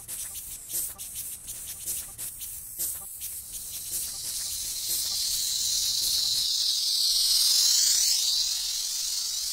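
Electronica track: sparse clicks about once a second with soft short blips, then a wash of high hissing noise that swells from about four seconds in, like a synthesized build-up.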